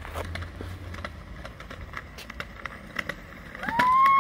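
A kick scooter's small wheels rolling down a concrete sidewalk, with scattered clicks. Near the end a long, loud, high held voice rises in and carries over the rolling.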